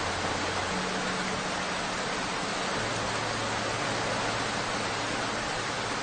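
Heavy rain falling steadily, an even unbroken hiss, with faint low held tones underneath.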